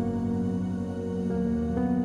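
Calm ambient background music of held chords, which shift twice in the second half.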